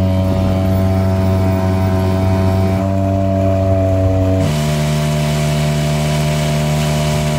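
Apache 5 outboard motor running steadily at speed, driving an inflatable boat. About halfway through, the engine note drops lower and a hiss of wind and spray comes up.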